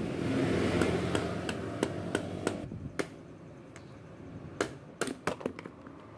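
Rubber mallet tapping on a Maktec rotary hammer's armature and gear housing, knocking the rotor loose from the body. The light, sharp taps come one at a time, a run of them in the first half and a quicker cluster near the end.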